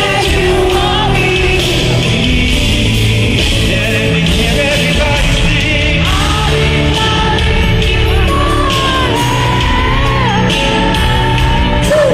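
Live pop music at a concert: a male lead singer singing into a microphone over a band, with yells from the crowd.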